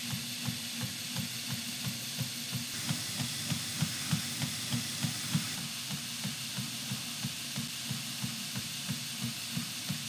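Belt grinder running with a forged steel knife blade held against the abrasive belt on a waterfall platen, a steady grinding hiss with a regular low pulse about five times a second. The blade's plunge lines are being ground even.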